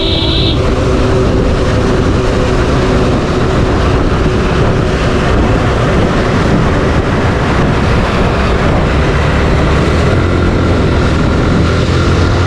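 Suzuki Gixxer 155's single-cylinder engine running at cruising speed, mixed with heavy wind rush on the mic. The low engine note grows stronger near the end.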